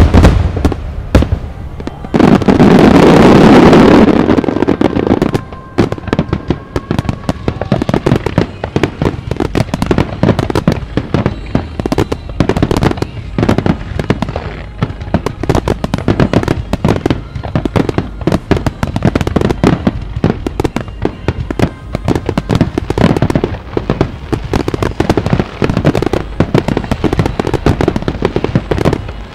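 Aerial fireworks in a display finale: a heavy, sustained blast about two seconds in, then dense, rapid crackling from many bursting shells and crackling stars.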